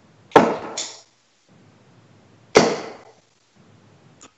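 Two steel-tip darts thudding into a Winmau Blade 5 bristle dartboard, about two seconds apart, each a sharp hit with a short decaying tail.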